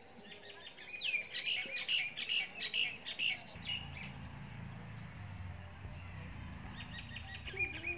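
A songbird singing a quick run of repeated high chirps for about two seconds, then chirping again near the end. A low steady hum sets in about halfway through.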